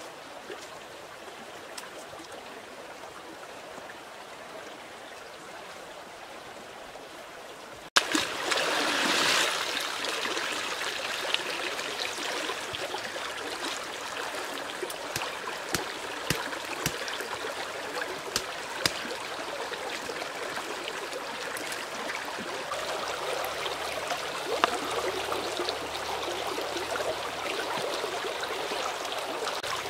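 A shallow stream trickling and gurgling, with scattered small splashes and clicks from hands working fish in the water. About a third of the way in, a faint outdoor hush gives way suddenly to the louder sound of the stream.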